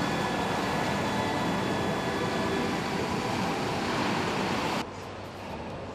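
Steady, loud machine noise of a car factory hall, an even rushing hum with faint high whines in it, that cuts off abruptly near the end.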